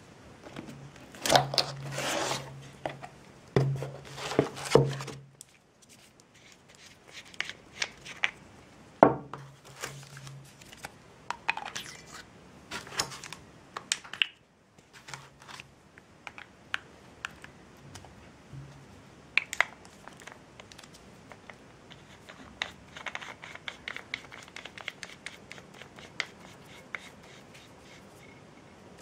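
A cardboard box being opened and handled: card scraping and rubbing in loud bursts during the first five seconds and again around nine seconds, then lighter rustling with many small taps and clicks as the plastic-and-metal foregrip inside is handled.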